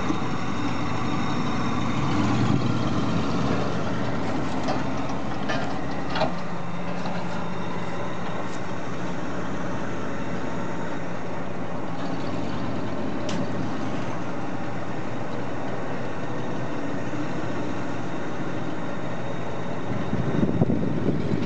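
Ford F-150 pickup engine idling steadily, with a brief louder stretch near the end.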